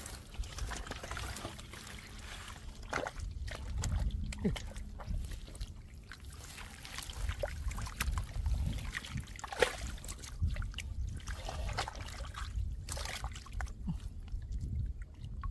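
Irregular splashing and sloshing in shallow muddy water, with scattered small knocks over a steady low rumble.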